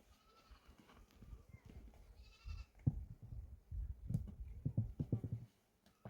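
Livestock bleating: a faint call near the start and a clearer one about two seconds in, with irregular low knocks and rustling after it.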